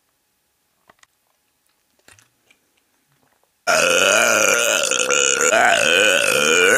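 A few faint clicks in near silence, then about halfway through a loud, long burp starts suddenly, its pitch wavering up and down and still going at the end.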